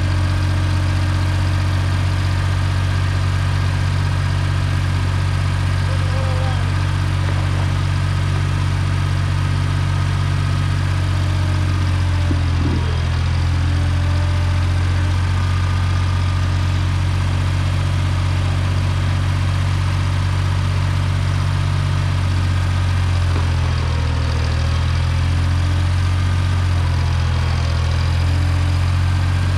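1974 Ford 3550 industrial tractor's engine running steadily at idle.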